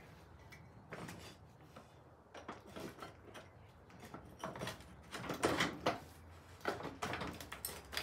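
Metal parts of a dirt bike's rear wheel assembly being handled: a run of short knocks, clunks and scrapes as the wheel, spacers and axle are fitted back into the swing arm, with more and louder knocks in the second half.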